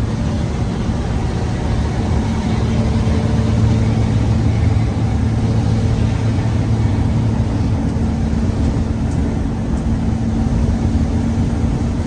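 Engine drone and road noise heard inside a vehicle cruising on a highway: a steady low engine hum over the rush of tyres and wind.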